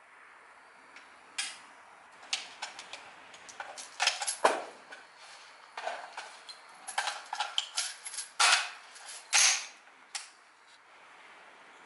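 Irregular sharp metallic clicks and clacks of an AR-15 rifle and gear being handled at the shooting bench, about a dozen over several seconds, the loudest around four seconds in and again near the end.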